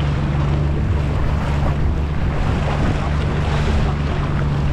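Small powerboat's engine running with a steady low drone while the hull cuts through choppy water, with a hiss of splashing water and wind on the microphone.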